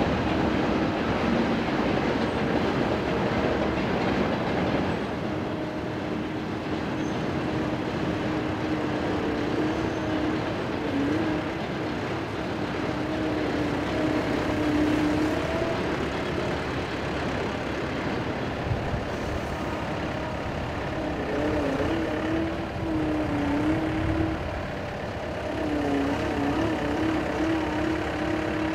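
Diesel locomotive engines droning as a twin-section train passes, loudest in the first few seconds, followed by a skid-steer loader's diesel engine running, its pitch rising and falling near the end.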